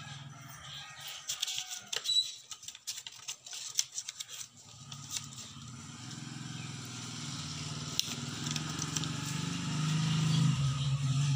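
A pen drawing on small stacked paper pages and the pages being handled, with scattered clicks and taps in the first few seconds. From about halfway a low steady hum builds, loudest near the end.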